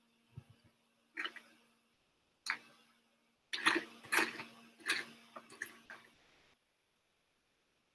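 Light clicks and taps of plastic lab tubes being handled in a tube rack on a bench, a few at first, then a quicker cluster in the middle, over a faint steady hum.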